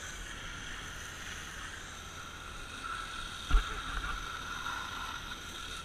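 Fire engine tanker running and pumping water to a hose line: a steady mechanical running noise with a constant whine. A single short, loud thump about three and a half seconds in.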